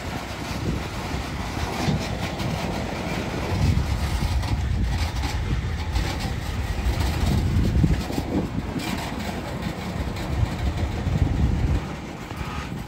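RS3M diesel locomotive running, a steady low engine sound that drops away sharply near the end.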